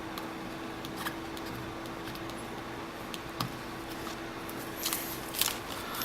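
Faint scratching and light clicks from fingers pressing and rubbing a mirror screen protector on a phone screen to push out air bubbles, a little stronger near the end. A steady faint hum runs underneath.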